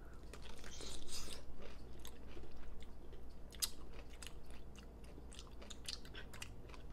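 Two people biting into sweet apple-flavored pickle slices and chewing them close to the microphone. A wet crunch comes in the first second or so, then irregular small crackly clicks of chewing.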